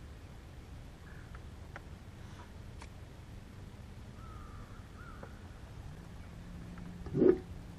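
Faint scattered bird calls, then a single loud thump a little after seven seconds in as the angler grabs his fishing rod on the boat's bow.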